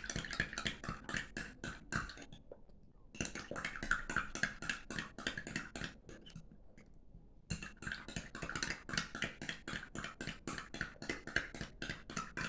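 A small spoon stirring warm water, lemon juice and honey in a glass, clinking rapidly against the glass about six times a second. The clinking breaks off briefly about two seconds in and again around six seconds in.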